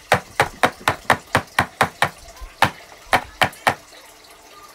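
Square metal cake tin filled with brownie batter tapped repeatedly on the worktop to knock out air bubbles. About a dozen sharp knocks, roughly four a second, with a short pause about two seconds in and a last few knocks after it.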